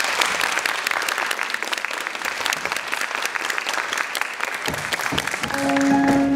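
Audience applause of many hands clapping for about five seconds. Near the end it gives way to a short music jingle of held, bell-like tones.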